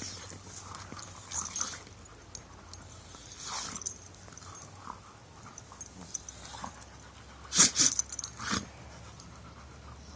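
Dogs play-wrestling, making short scattered noises with open mouths as they mouth at each other; the loudest is a quick cluster of a few sounds about three-quarters of the way through.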